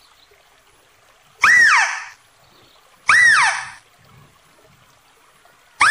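Philippine mouse deer (Balabac chevrotain) calling: two short, shrill cries, each rising then falling in pitch, about a second and a half apart, with a third starting at the very end.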